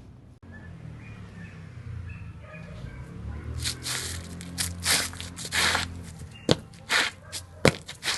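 Percussive sounds made with household materials: a few seconds in, loud rough rustling or scraping strokes start, followed by sharp knocks at uneven intervals, over a low hum.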